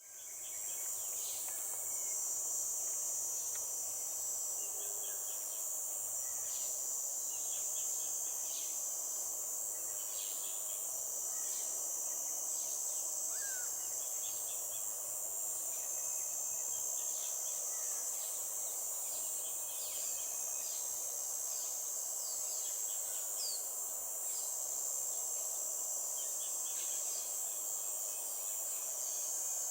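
Daytime outdoor ambience: a steady high-pitched insect drone, with many short bird chirps scattered throughout.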